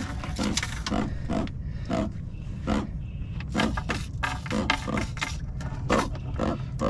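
Catfish thrashing on a boat's carpeted deck as it is grabbed: a series of short slaps and scuffs over a steady low rumble.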